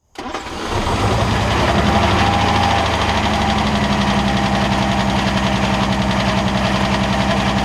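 1947 Armstrong Siddeley Hurricane's 1991 cc six-cylinder engine idling steadily, heard close up at the open engine bay.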